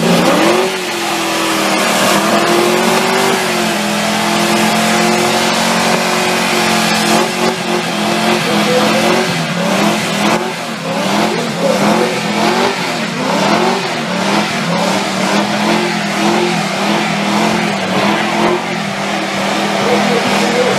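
Car engine in a burnout, revved sharply and held at high revs while the rear tyres spin and smoke. From about a third of the way in, the engine pitch wavers quickly up and down as the throttle is worked.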